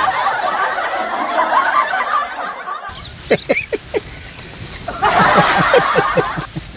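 A man giggling and snickering in short runs of quick laughs, one about three seconds in and a longer one near the end.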